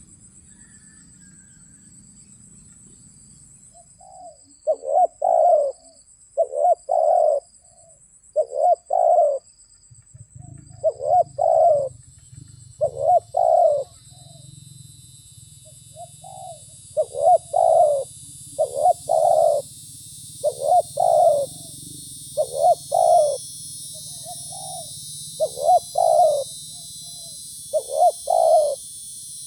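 Spotted dove cooing: short phrases of two or three notes repeated about every two seconds, starting about four seconds in. A steady high-pitched insect trill runs underneath.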